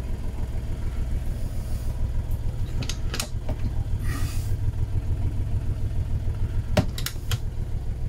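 The boat's motor running steadily, a low hum with a fast flutter heard from inside the cabin. A few sharp clicks come about three seconds in and again near seven seconds, as a wooden galley cupboard door is opened and its latch worked.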